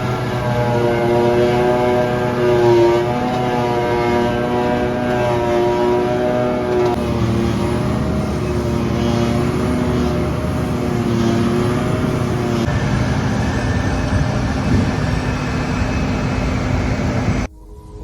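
Heavy farm machinery diesel engines, forage harvester and tractors, running hard while chopping and hauling grass silage, with a steady engine note that wavers slightly in pitch. The sound changes abruptly twice as shots are cut together, then cuts off just before the end.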